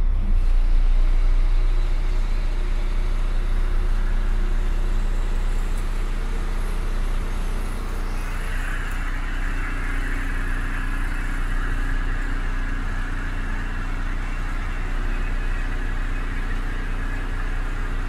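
DAF CF75.310's 310 bhp turbo diesel engine idling steadily, heard from inside the cab, loudest in the first second or two and then settling; a hiss comes in about eight seconds in.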